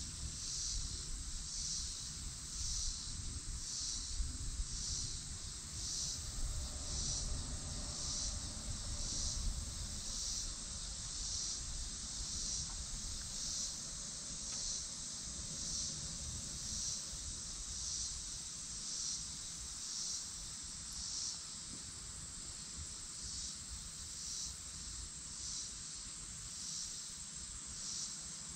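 Daytime summer insect chorus: a steady high-pitched buzz that pulses about twice a second.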